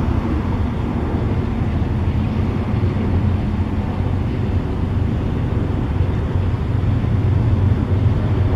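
Steady, unchanging low rumble of a large engine running.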